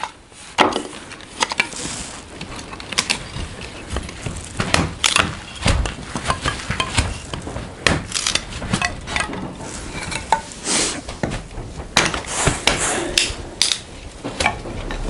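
An adze-like hewing tool striking a log again and again, a dense, irregular run of sharp knocks and clatter as it takes the wane off the timber.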